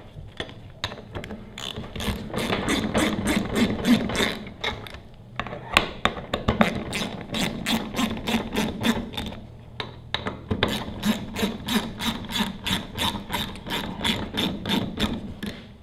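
Socket ratchet clicking rapidly, about five clicks a second, in several runs as it spins bolts down on an axial cam pressure washer pump, with short pauses between runs.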